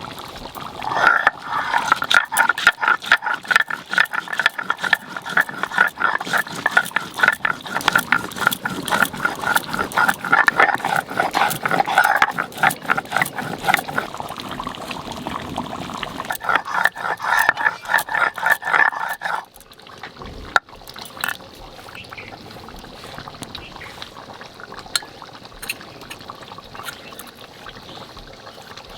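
Garam masala being ground on a stone slab with a stone grinder: fast, rhythmic stone-on-stone scraping with a squeaky ring, stopping about two-thirds of the way through.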